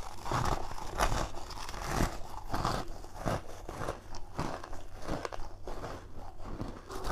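Ice being bitten into, close to the microphone: a quick, irregular run of crisp crunches, several a second.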